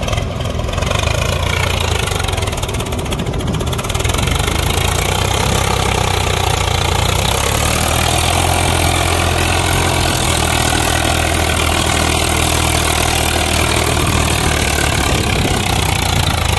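Diesel farm tractor engine running steadily while pulling a fully loaded soil trolley, with a JCB backhoe loader's diesel engine running close by.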